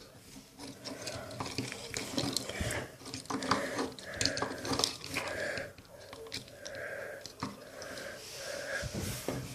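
Handling noise: scattered light clicks and knocks of hard objects being moved about, with faint murmured voice sounds from about four seconds in.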